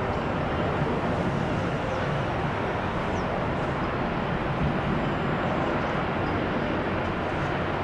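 Steady rushing jet noise of a Boeing 777 on approach to land, mixed with wind noise on the microphone.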